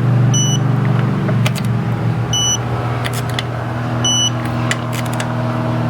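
A steady low mechanical hum, with a short high electronic beep repeating about every two seconds and a few sharp clicks.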